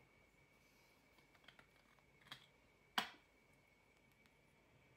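Near silence with a few faint clicks and one sharper click about three seconds in, from handling a skincare toner bottle and its cap.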